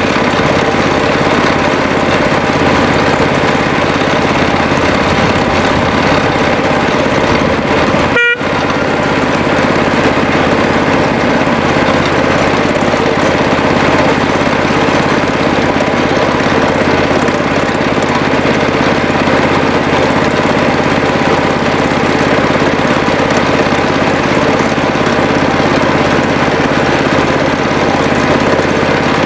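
Miniature railway locomotive's engine running steadily as the train travels along the track, a constant drone with fixed tones. The sound drops out briefly about eight seconds in.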